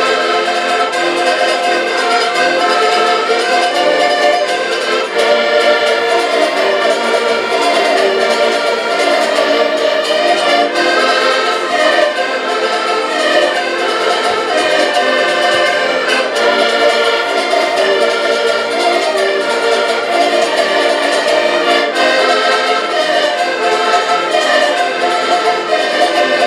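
Ensemble of five accordions and a small plucked string instrument playing a folk tune together, steady and loud throughout.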